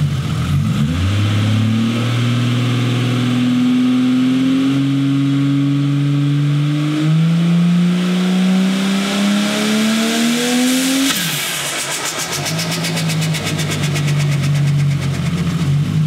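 Holden VL Turbo's RB30 turbocharged straight-six revving up, its pitch climbing for about ten seconds, then dropping sharply back to a steady idle about eleven seconds in. As the throttle closes there is a rapid chatter: turbo flutter ('dose') through the 3-metre dose pipe.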